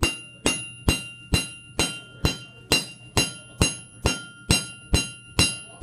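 Flat-faced hammer striking a metal rod on a railroad-rail anvil in a steady rhythm, about two blows a second, each blow leaving a clear metallic ring. The round rod is being hammered square.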